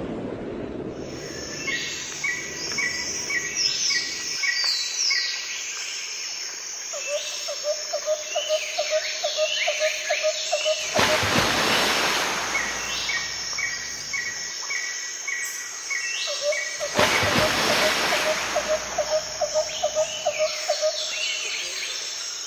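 Nature ambience of birds calling and insects chirping in fast repeated trills, with two brief rushes of noise about eleven and seventeen seconds in.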